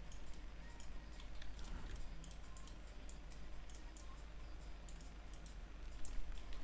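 Faint, irregular clicking of a computer mouse as the drawing software is worked.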